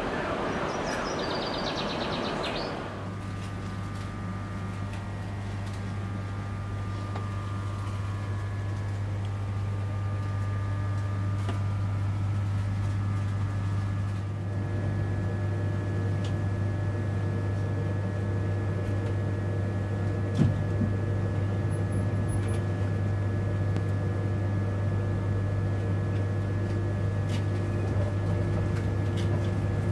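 Steady low hum inside a stationary InterCity 225 passenger coach, with faint steady whines above it and a single knock about two-thirds of the way through. For the first three seconds, before the change to the coach, there is open station noise with a high whine.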